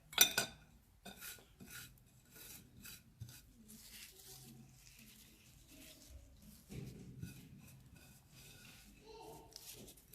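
Hands scraping and rubbing coarse salt around lemons on a surface, with scattered small clicks and taps, after one sharp knock right at the start.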